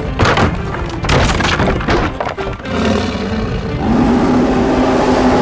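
Cartoon crashing and breaking sound effects over background music, a dense run of impacts in the first half, then the music carries on alone with held notes.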